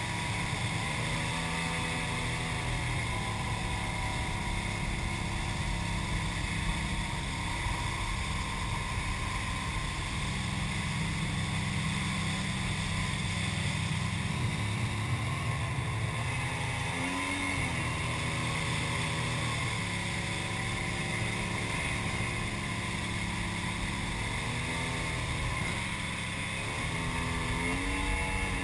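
Jet ski engine running at speed, with rushing water and wind over the GoPro housing. The engine note glides up and down a few times as the throttle changes.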